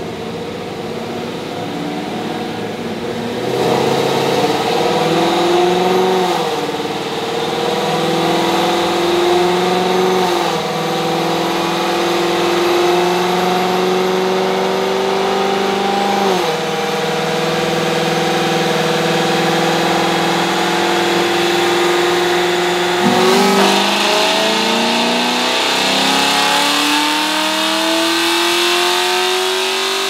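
2018 Camaro SS's 6.2-litre LT1 V8, fitted with long-tube headers, an X-pipe and the stock NPP exhaust, running a full-throttle pull on a chassis dyno. The note opens up a few seconds in, then climbs steadily and falls back sharply at each of four gear changes.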